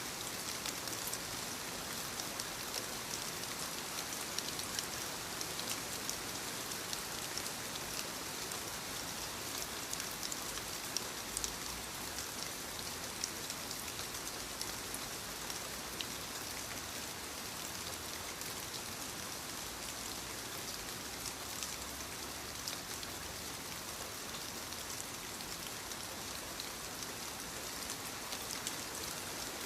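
Steady rainfall, with many individual raindrops pattering and ticking on surfaces over a continuous hiss.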